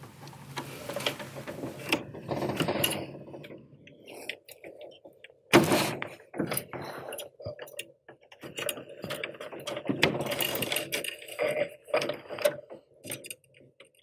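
A 3.5 mm flathead screwdriver working the screw terminals of a plastic plug-in power connector as a wire is fitted: scattered clicks, ticks and scraping of the blade in the screw heads, with a louder knock about five and a half seconds in.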